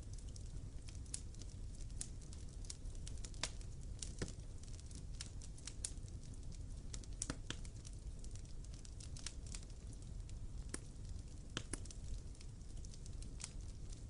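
Wood fire crackling: irregular sharp pops and snaps, a few of them louder, over a low steady rumble.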